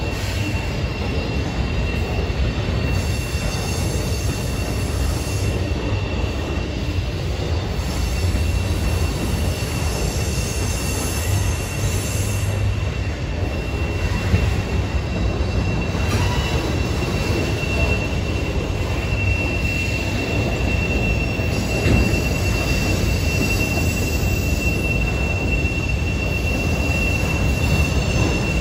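Freight train of autorack cars rolling past: a steady rumble of steel wheels on rail, with a thin, high wheel squeal that grows stronger in the second half.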